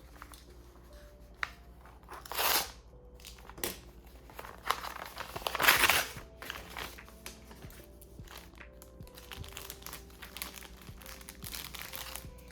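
Packaging crinkling and tearing as it is handled and opened, with small rustles and clicks. Two louder crinkles come about two seconds in and around the middle. Soft background music plays underneath.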